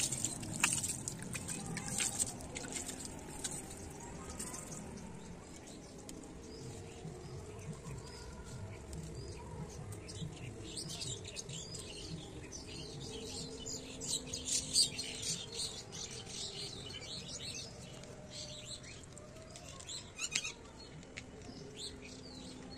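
Water poured from a metal pail splashing onto potted strawberry plants and wet soil in the first few seconds. Birds chirp later, most busily around the middle.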